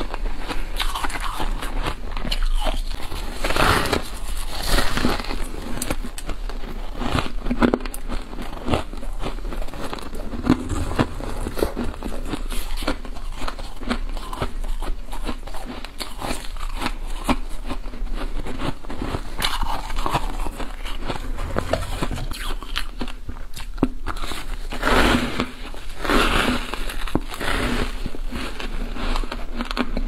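Freezer frost being bitten and chewed close to a clip-on microphone: a continuous run of crisp, irregular crunching and crackling, with louder crunches about four seconds in and again around twenty-five seconds.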